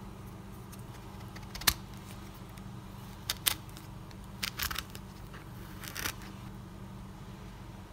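A serrated knife sawing through the hard rind of a passion fruit: a sharp click about two seconds in, then a few short crunches and scrapes as the blade cuts in.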